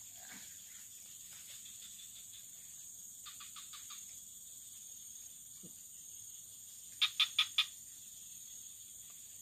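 Frogs calling in a swamp: a quick run of about five short notes around three seconds in, and four louder, evenly spaced notes about seven seconds in. Behind them runs a steady, high insect drone.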